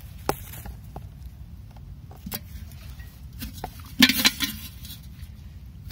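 Scattered small taps and scrapes as a gloved hand pushes a firecracker into dry soil, then, about four seconds in, a short clatter of a battered metal milk can being set down over it.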